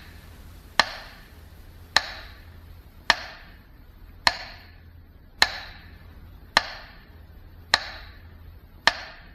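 Sharp strikes or ticks repeating evenly, a little slower than once a second, eight in all, each with a short ringing tail, over a faint steady low hum.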